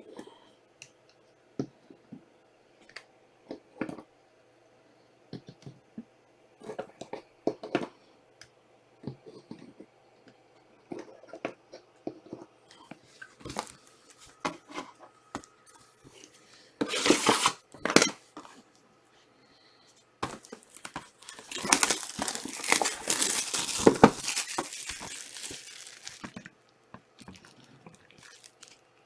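Trading card packs being handled and torn open: scattered light taps and slides of cards, two sharp rips about two-thirds of the way in, then several seconds of foil pack wrappers crinkling and being crumpled.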